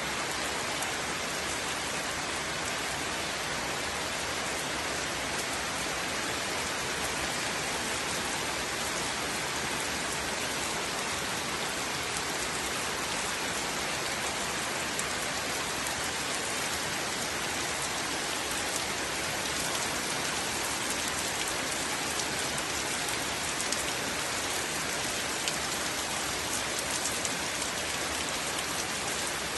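Steady rainfall, with individual drops ticking on a surface over an even hiss.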